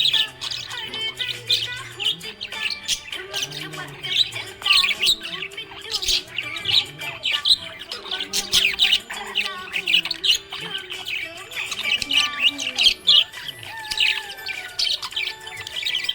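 Budgerigars chirping and warbling in rapid, continuous high chatter, with music underneath.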